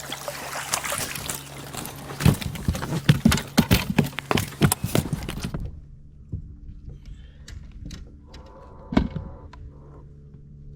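A quick run of knocks and thuds in the boat as a just-landed crappie is handled. After that comes a steady low hum with a few light clicks and one louder thump near the end.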